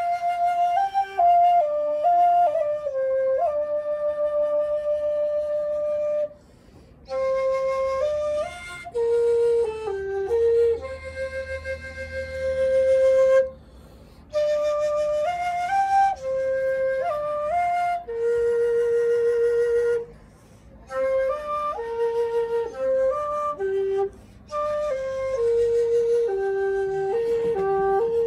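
End-blown bamboo flute played solo: a slow melody of held notes and short stepwise runs, in phrases separated by brief pauses for breath.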